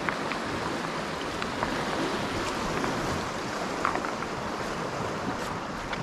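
River water rushing steadily, with a few faint clicks scattered through it.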